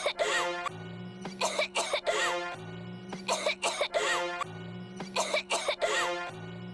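A short clip of coughing looped over and over: a burst of several quick coughs comes about every two seconds, each followed by a steady low tone.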